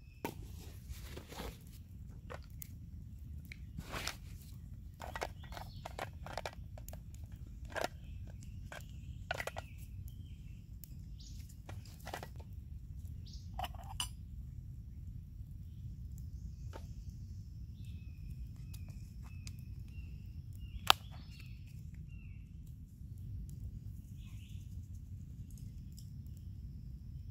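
Camp cook kit and French press being handled: scattered light clicks and knocks, one sharper click about three quarters of the way through, over a steady low rumble, with a few faint bird chirps.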